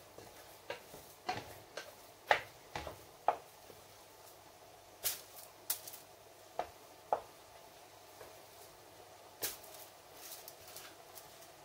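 Knife working on hard green matooke bananas: irregular short cuts and scrapes, a dozen or so, over a faint steady hum.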